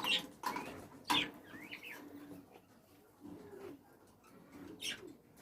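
Pet cage birds calling: a few short high chirps near the start, then several lower, drawn-out calls spread through the rest.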